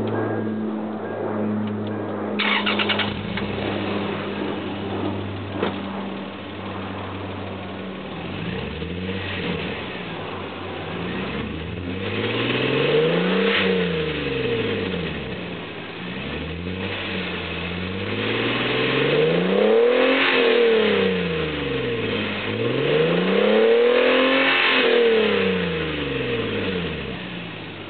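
Lexus IS300 exhaust note through an HKS Hi Power axle-back exhaust: the engine idles steadily at first, then is revved again and again, each rev rising in pitch and falling back to idle, the longest and highest revs in the second half.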